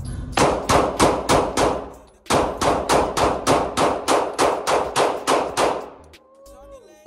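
Rapid pistol fire in an indoor shooting lane, about four shots a second: a string of about six shots, a brief pause about two seconds in, then a longer string of about fourteen that stops about six seconds in.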